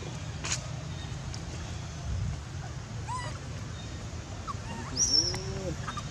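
Steady low outdoor rumble with a few short, high animal calls: a chirpy series about three seconds in, and about five seconds in the loudest, a high squeaky call over a lower arched call.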